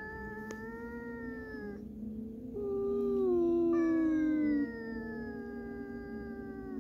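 Stray cats meowing in long, drawn-out calls that slowly fall in pitch, one after another and briefly overlapping; the loudest call comes in the middle.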